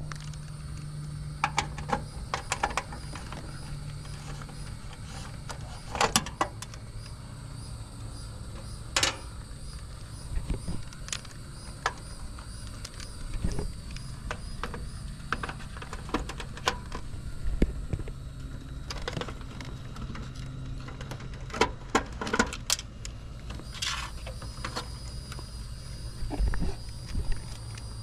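Scattered clicks and knocks of tools and parts being handled during air-conditioner repair work, over a steady low hum.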